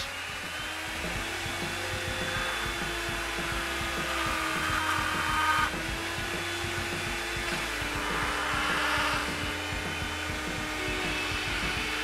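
Homemade rotary tool, a blender motor driving a flexible shaft, running with a steady whine. Harsher grinding comes about four seconds in and again about eight seconds in, as the bit is pressed into a thin plate.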